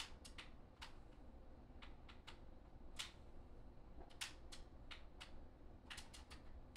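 Faint, irregular light clicks, about fifteen, some coming in quick runs of three or four, like keys being tapped.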